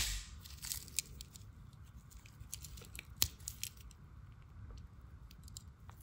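Blade of a multi-layer 91mm Victorinox Swiss Army Knife snapping shut against its backspring with one sharp click, followed by fainter clicks and rubbing as gloved fingers handle the knife and start pulling out the small blade.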